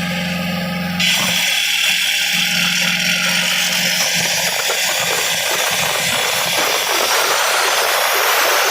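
Compressor-driven automatic rock drill boring into sandstone. A steady machine hum, then about a second in a loud, even hissing noise starts suddenly and continues.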